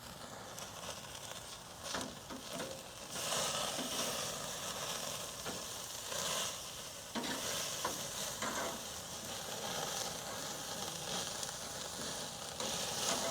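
Meat sizzling on a hot charcoal grill, a steady hiss that grows louder about three seconds in, with a few short clicks.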